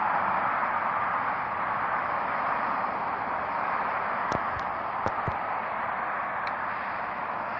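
Steady outdoor background hiss, with a few small clicks a little past halfway through.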